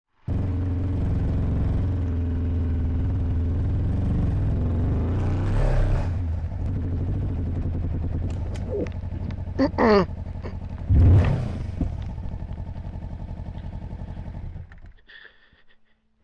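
Kawasaki Versys motorcycle engine running under way, with a few brief swells in the note before it fades out and stops near the end.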